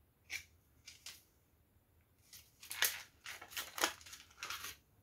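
A few short sniffs at a scented wax bar held to the nose. About two seconds in, the bar's clear plastic clamshell packaging crinkles and crackles as it is handled.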